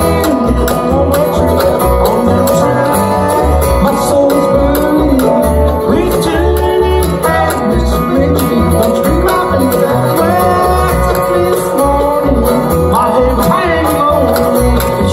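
Bluegrass band playing live on acoustic instruments: upright bass plucking a steady beat under acoustic guitar, mandolin and resonator guitar (dobro), with sliding notes in the melody.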